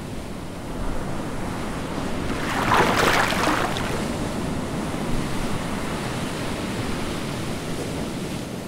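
Ocean surf sound effect: a steady wash of waves, swelling into a louder rush of breaking water about three seconds in before settling back to a steady wash.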